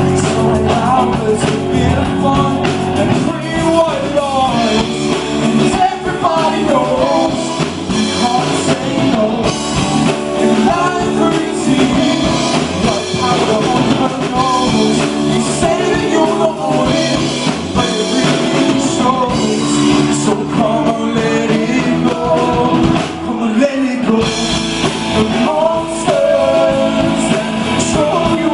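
Live rock band playing a song: guitars and drum kit with a singer's voice.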